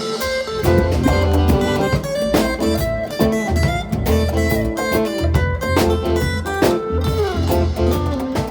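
Live band playing an instrumental passage, with guitar to the fore over a pulsing bass line.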